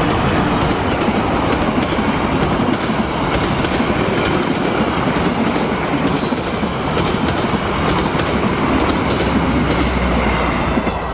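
Indonesian passenger train passing close by at speed, diesel locomotive first and then its carriages: a loud, steady rumble with wheels clattering over the rail joints.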